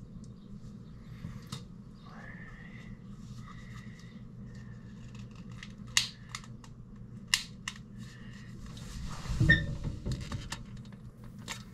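A few sharp isolated clicks and a soft thump about two-thirds of the way through, over a faint steady low hum.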